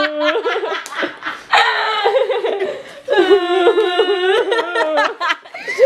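Young women laughing hard in several high-pitched bursts, some drawn out into long squealing laughs.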